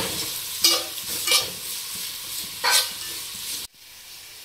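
Metal spatula stirring and scraping tomatoes and onions frying in oil in a metal pot, over a steady sizzle, with three louder scrapes against the pot. The sound cuts off abruptly about three and a half seconds in, leaving only faint background.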